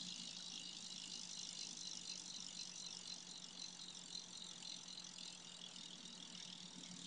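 A BMX bike's Eastern cassette hub freewheeling as the rear wheel spins: a rapid, even clicking of the pawls, pretty quiet, easing off slightly toward the end.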